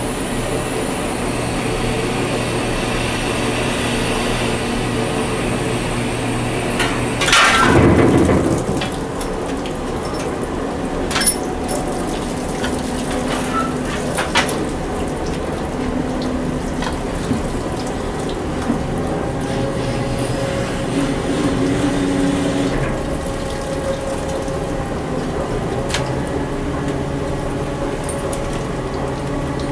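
Working noise on a ship's deck: a steady engine hum under wind and sea wash as the steel Smyth McIntyre sediment grab is brought aboard. A loud rumbling thump comes about seven seconds in, and a few sharp metal clanks follow as the grab is handled.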